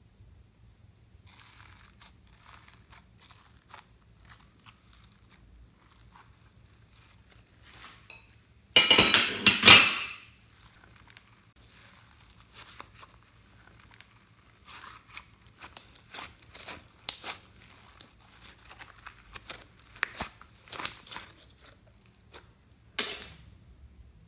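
Thick glitter slime handled by hand: soft sticky crackles and squelches as it is pulled and folded, with one loud tearing rasp lasting about a second about nine seconds in as the slime is peeled away from its dish.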